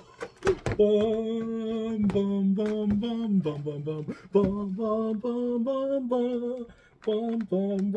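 A man's voice singing a wordless tune in long held notes that step up and down in pitch. A few sharp clicks come just before the tune starts.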